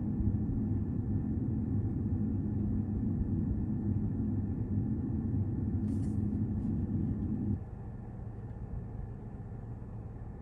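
Low, steady rumbling soundtrack of a boot-animation preview playing through the car's speakers, cutting off suddenly about seven and a half seconds in, after which a quieter low hum remains.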